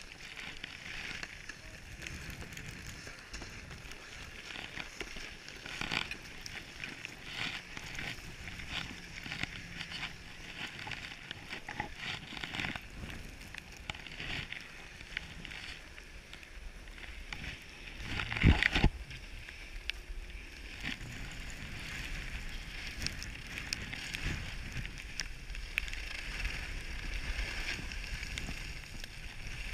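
Skis hissing and scraping over packed snow on a downhill run, with many small clicks and chatter. There is a loud thump about two thirds of the way through, and wind rumble on the microphone in the second half.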